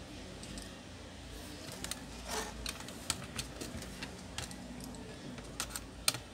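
Plastic and metal parts of a laptop's display lid clicking and tapping as it is handled and laid flat, an irregular scatter of light clicks from about two seconds in, the sharpest one near the end.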